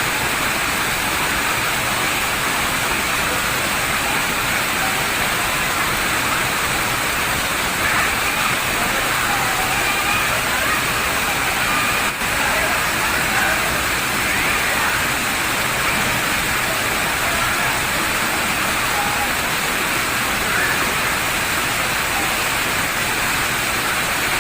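Steady rushing of river water tumbling over rocks and falls, an even noise with no breaks.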